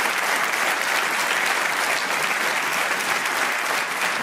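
Studio audience applauding steadily, a sustained round of clapping.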